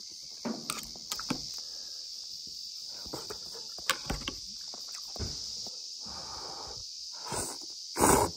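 A person eating instant ramen noodles from an aluminium pot: chewing, with small clicks of metal chopsticks against the pot, then a loud slurp of noodles near the end. A steady high-pitched drone runs underneath.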